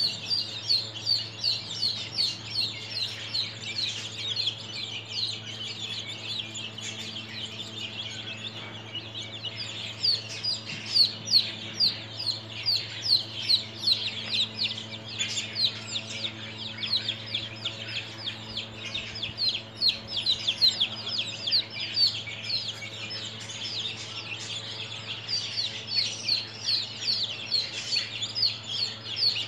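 A group of 13-day-old chicks peeping without a break, many short falling chirps overlapping, several a second.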